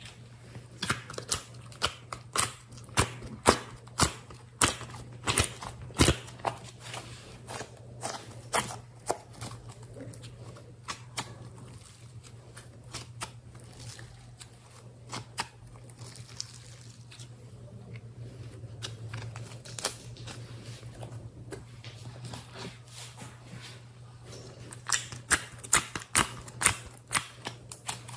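Slime being stretched and squeezed by hand, giving a run of sharp clicks and pops, several a second. The clicks come thickly at first, thin out in the middle, and crowd together again near the end.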